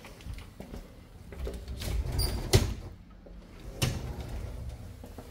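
Sliding closet door being rolled along its track, with a low rumble and a few sharp knocks; the loudest knock comes about two and a half seconds in.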